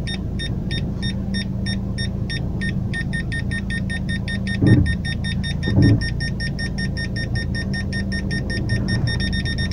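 Aftermarket reversing parking-sensor buzzer beeping as the car backs toward an obstacle: short high beeps at about four a second speed up to about eight a second and merge into a continuous tone near the end, the warning that the obstacle is very close. The Siena's engine idles underneath as a steady low hum.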